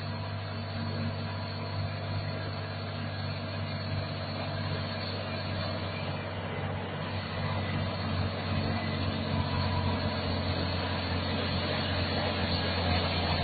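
Volvo FH 540's 13-litre six-cylinder diesel engine running steadily under load as the truck pulls a multi-axle trailer up a dirt grade, growing gradually louder as it approaches.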